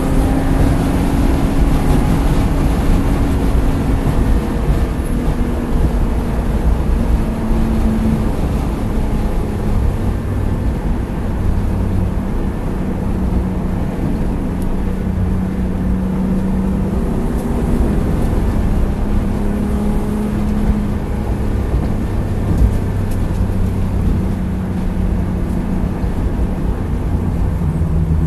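BMW E36 engine running under way on a race track, heard from inside the cabin over steady road and wind noise. Its note steps and drifts up and down in pitch a few times as the car slows.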